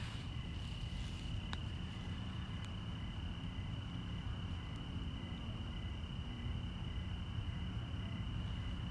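Night insects trilling: one steady high trill with a fainter, evenly pulsed chirping below it, over a low background rumble. A single sharp click about a second and a half in.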